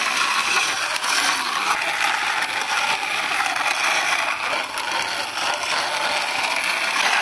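Hard plastic wheels of a small toy car rolling and grinding on rough concrete as it is pushed along by hand: a steady, gritty scraping noise.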